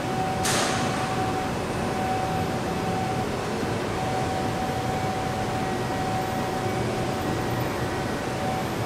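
Yellow Line monorail train running at a station: a steady hum with a constant mid-pitched whine, and a short hiss about half a second in.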